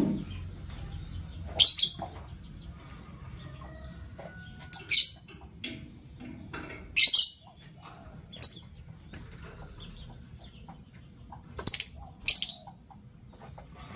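Lovebirds giving short, shrill, high-pitched chirps, about seven of them spread irregularly, a few in quick pairs.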